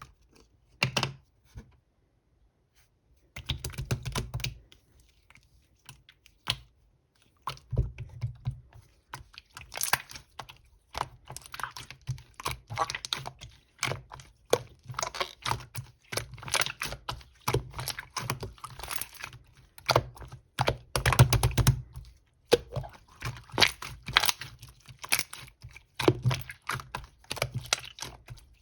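Clear slime being squished and pressed by hand, giving dense crackly clicks and pops in bursts. A short burst about a second in, a pause, then almost continuous clicking from several seconds in.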